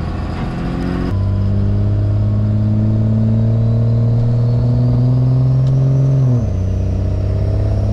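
Dodge Ram's 5.9 Cummins turbo diesel pulling hard in first gear, heard inside the cab, its pitch climbing slowly. About six seconds in the pitch drops sharply as the automatic is bumped up into second gear.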